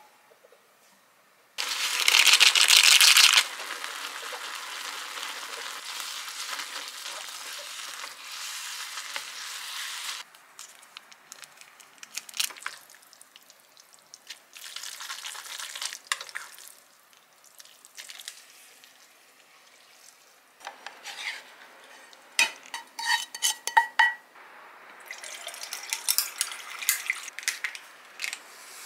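Instant noodles and sauce sizzling in a small saucepan on a gas stove while being stirred with wooden chopsticks. A loud burst of sizzling about two seconds in settles into a steadier sizzle. Later come scattered clicks and a quick run of ringing clinks of tableware.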